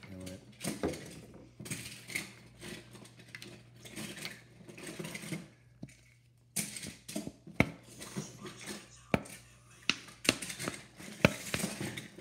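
Clicks, taps and knocks of a plastic paint bottle being handled and shaken upside down over a plastic paint palette, as the black paint refuses to come out.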